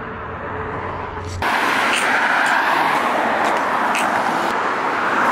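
Steady rushing of road traffic from cars passing on the road. It comes in suddenly about a second and a half in, after a quieter stretch with a low hum.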